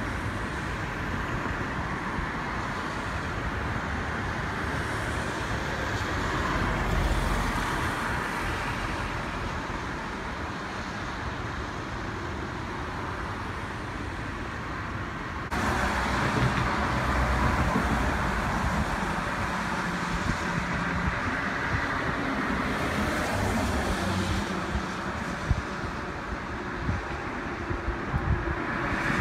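Steady road traffic noise of cars going by, with no distinct horn or engine note; it jumps suddenly louder about halfway through.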